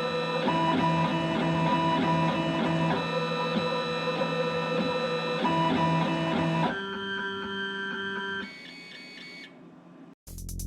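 The stepper motors of a five-axis CNC mill whining at several pitches at once, the chord changing every second or two as the axes move back and forth. The whine gets quieter in steps in the second half and stops near the end, where electronic music with a drum-machine beat starts.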